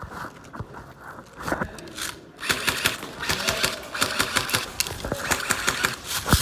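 Airsoft guns firing in rapid strings, a fast clatter of shots and BB impacts that starts about two and a half seconds in, after a few scattered clicks.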